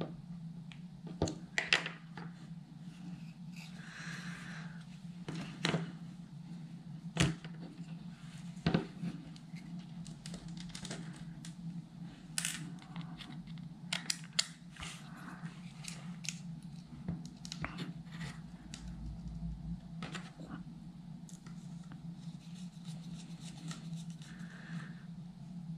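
Scattered light clicks and taps of a small screwdriver, tiny screws and metal case panels as an amplifier's metal enclosure is screwed together, over a steady low hum.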